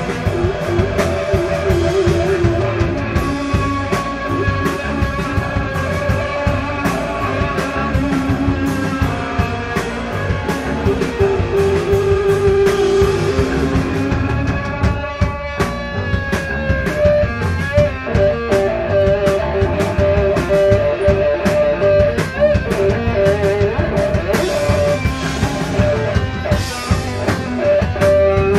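Live desert/stoner rock band playing an instrumental passage: distorted electric guitar holding long notes over bass and a drum kit keeping a steady beat.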